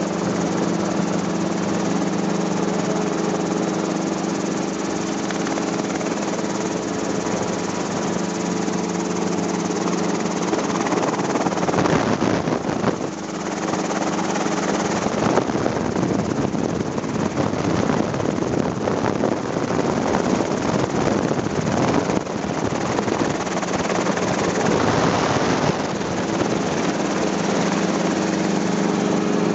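Helicopter engine and rotor running, a steady hum with several held tones. About eleven seconds in the tones give way to a rougher, rapidly pulsing rotor noise, which settles back to the steady hum near the end.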